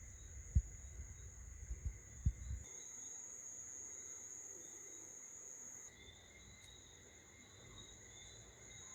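Homebrew RepRap 3D printer giving a faint, steady high-pitched whine, with a few knocks in the first couple of seconds. The whine changes abruptly about a third of the way in and again about two-thirds in.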